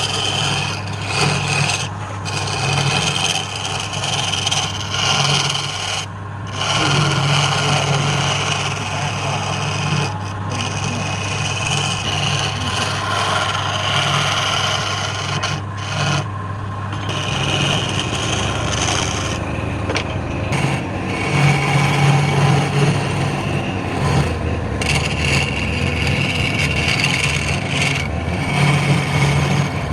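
Wood lathe motor humming steadily while a tool scrapes against the spinning wood, the scraping easing off briefly several times.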